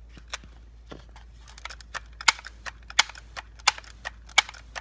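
Multi-pump pneumatic air rifle being pumped up: a regular series of sharp clicks, about one pump stroke every 0.7 seconds, each stroke a loud clack with a softer click between, getting louder from about two seconds in.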